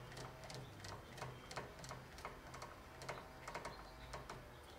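Rebound clicker adjuster of a motocross rear shock being turned out with a screwdriver: a faint run of detent clicks, about four a second, unevenly spaced.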